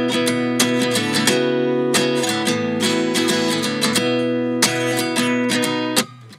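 Background music: an acoustic guitar strumming chords, cutting off sharply near the end.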